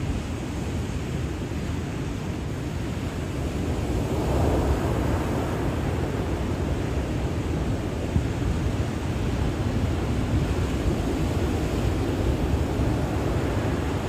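Rough ocean surf: waves breaking and washing ashore in a steady, deep rush, with a bigger wave breaking about four seconds in.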